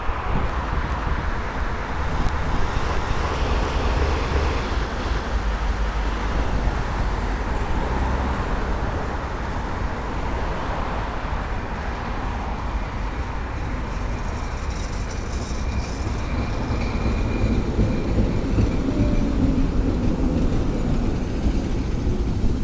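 LVS-86K articulated tram running along the track, its bogies knocking and rattling over the rails over a steady low rumble.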